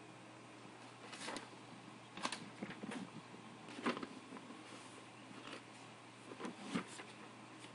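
Faint room noise: a steady low hum with a few scattered soft knocks and clicks.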